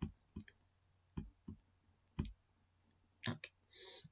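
Computer mouse clicking: about seven short, sharp clicks at irregular intervals, with a quick pair a little over three seconds in.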